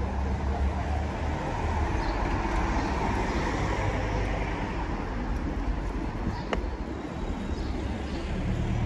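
Town street traffic noise: a steady low engine rumble, with a vehicle passing in the middle, and a single sharp click about two-thirds of the way through.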